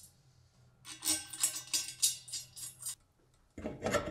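Light metallic clinking and jingling of a taper-lock bushing and its bolts being handled in the hub of a steel dust-collector impeller. Near the end comes a louder metal clatter with a short ring as the impeller is set down on the motor mounting plate.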